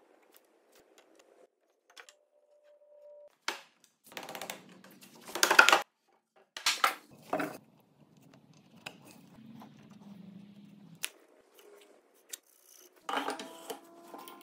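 Intermittent handling of timber on a wooden workbench: pencil scratching on the wood, then pieces of wood knocked, slid and set down in a few short clatters. Near the end a heavy timber is set onto the mortiser's metal table with a knock and a brief ringing.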